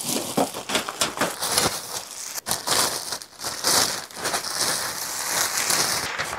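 Plastic packaging crinkling and rustling as it is pulled off the metal parts of a flat-packed cart, with many quick clicks and light knocks.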